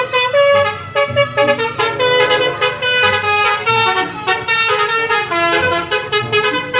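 Tour bus's musical multi-tone air horn, the Indonesian 'telolet' kind, playing a fast tune of stepped notes that keeps going without a break.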